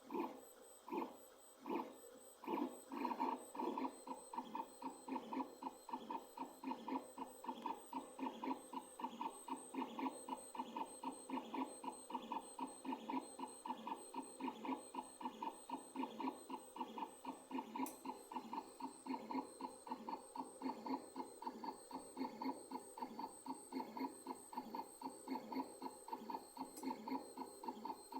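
Creality CR10 S5 FDM 3D printer printing PETG: its stepper motors whine in short pitched pulses as the print head moves back and forth. The pulses come about once a second for the first few seconds, then speed up to about three a second, with the cooling fan running steadily underneath.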